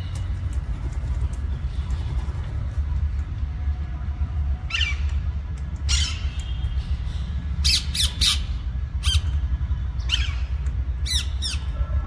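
Alexandrine parakeets giving short, harsh squawks from about the middle on, some in quick runs of two or three, over a steady low rumble.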